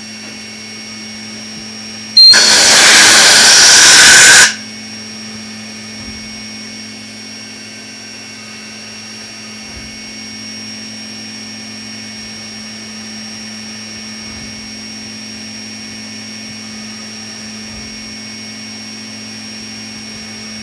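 CNC milling machine engraving, with a steady hum and a thin high whine from the spindle. About two seconds in, a loud hiss cuts in and runs for about two seconds before stopping abruptly.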